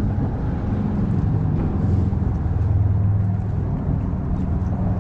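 A boat engine running with a low, steady hum that shifts slightly in pitch partway through.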